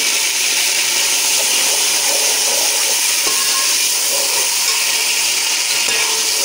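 Water added to hot oil and fried onions in a cooking pot, boiling and sizzling hard with a steady hiss.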